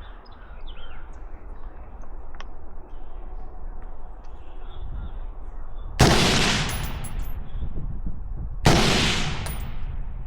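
Two single gunshots from an AR-style firearm, about two and a half seconds apart, the first about six seconds in, each followed by a long echoing tail.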